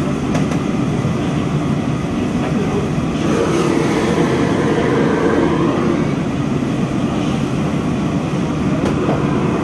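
Steady, loud roar of a busy commercial kitchen's wok ranges and ventilation, with no distinct events standing out.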